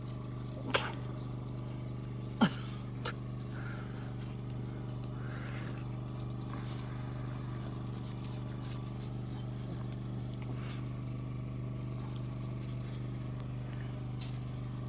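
A steady low machine hum, with a puppy's short squeak falling sharply in pitch about two and a half seconds in and a few faint small clicks and rustles.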